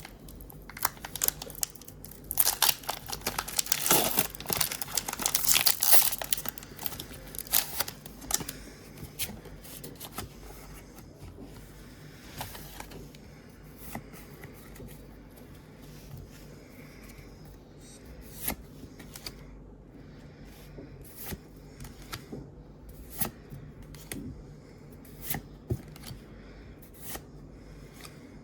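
Foil wrapper of a Pokémon TCG booster pack being torn open and crinkled for several seconds, then the cards being flicked through one at a time, each a short sharp tick.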